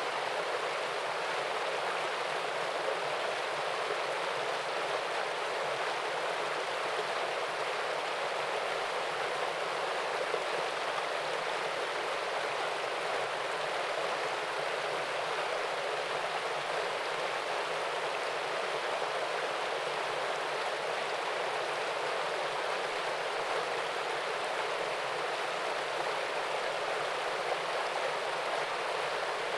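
Small waterfall splashing into a stream, a steady rushing of water that stays even throughout.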